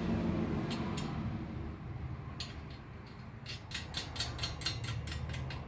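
Small metallic clicks and clinks of steel washers, lock washers and nuts being fitted by hand onto the bolts of a shop press frame: a few single clicks, then a fast run of clicks in the second half.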